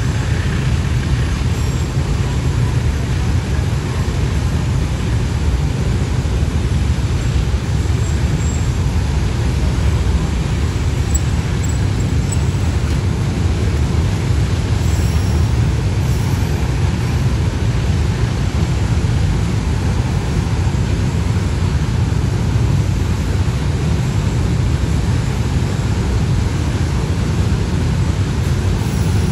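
Container freight train's wagons rolling past on the rails: a steady low rumble that does not let up.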